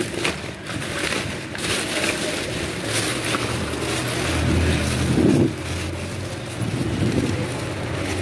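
Plastic wrap, paper and cardboard crinkling and rustling as a gloved hand rummages through a box of trash, over a steady low rumble.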